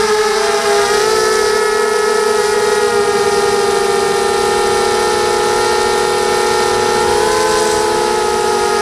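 ZMR250 mini quadcopter's Sunnysky 2204 brushless motors and propellers whining in flight, heard from the camera on board. Several close tones drift apart and back together as the throttle shifts, over a rushing hiss of air.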